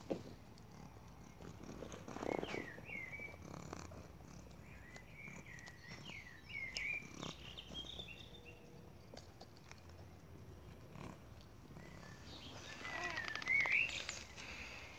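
Cat mewing in short, wavering calls several times, then once more, louder, near the end, with a few knocks and rustles in between.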